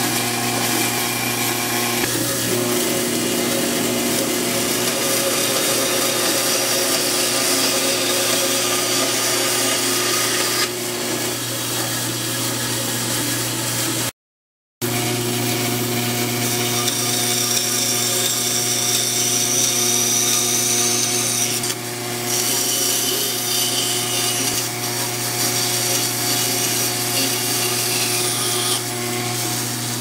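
Bandsaw running steadily while cutting plywood, a cutting hiss riding over the motor hum and coming and going as the wood is fed through the blade. The sound drops out for a split second midway.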